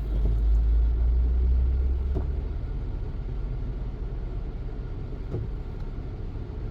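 Low, steady rumble of a 2017 Honda CR-V's 1.5L turbo four-cylinder heard from inside the cabin while stopped. The rumble is heavy for the first two seconds or so, then settles lower.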